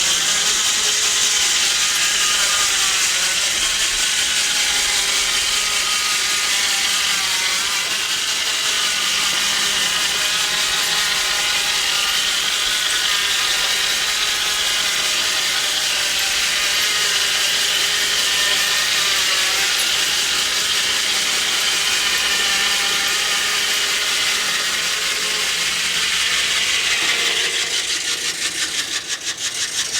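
Steam-powered sawmill saw cutting through a log: a steady, loud, high-pitched ringing whine mixed with the rasp of the cut. Near the end the sound thins out and wavers in loudness.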